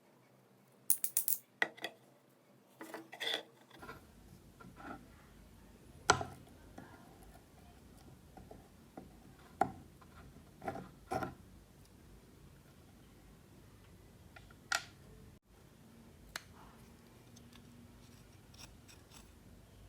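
Scattered light metallic clicks, clinks and knocks of small metal parts and tools being handled, several seconds apart, the sharpest about six seconds in.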